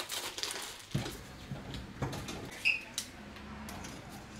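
Light metallic clicks and taps of bolts and a hand tool being worked at the turbo-to-exhaust-manifold flange, with one short high-pitched squeak about two-thirds of the way through.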